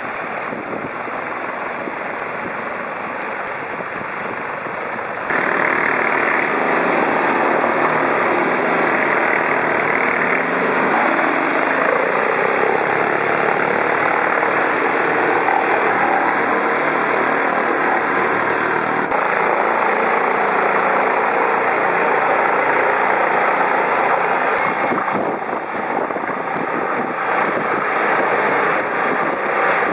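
High-pressure water jets from a Mosmatic Hurricane underbody washer hissing steadily against a truck's underside and tyres, with an engine running underneath. The spray gets louder about five seconds in.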